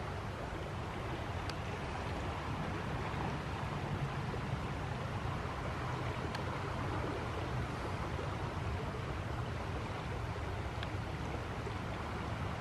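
Steady rushing of the Flint River running high in flood, an even, unbroken water noise.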